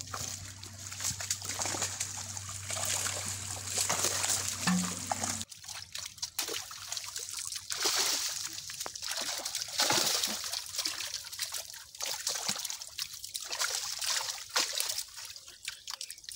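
Water splashing and sloshing as hands work a net full of live fish in shallow pond water, the fish thrashing in it.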